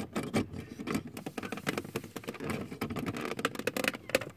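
Plastic OBD-II cable connector being worked into the car's under-dash diagnostic port: a run of small, irregular plastic clicks and rattles.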